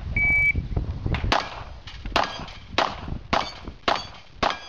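Shot timer beep, then a string of about seven Glock pistol shots fired roughly half a second apart, with steel targets ringing as they are hit.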